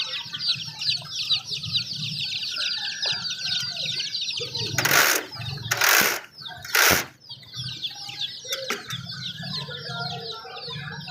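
Many young chicks peeping continuously in a dense, high chorus. About five seconds in, three loud rustling bursts come roughly a second apart over the peeping, like wings flapping.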